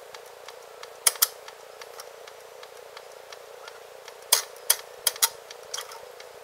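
Floor jack being pumped up under a backhoe's hydraulic pump: sharp metallic clicks and clinks, irregular and in small clusters, as the handle works and the threaded saddle rises.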